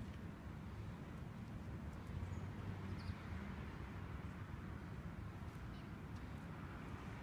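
Steady low outdoor background rumble, with a few faint ticks and a couple of brief faint high chirps.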